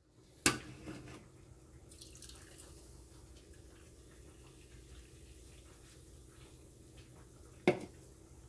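Cola poured from a can into a steel mixing bowl of liquid batter, a faint trickling and dripping. A sharp click about half a second in, and a knock near the end as the can is set down on the stone countertop.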